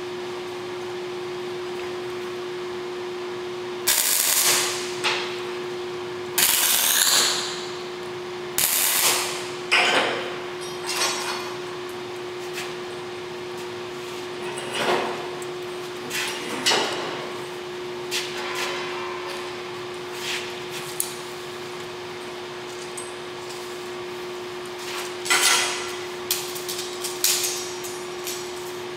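Steel pieces clanking and being knocked into place on a steel welding table: irregular sharp metal impacts with short ringing tails, in three clusters, over a steady hum.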